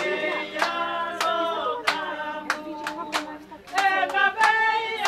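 A group of voices singing a cappella in harmony, kept in time by steady hand claps about every two-thirds of a second; the singing dips briefly a little past the middle.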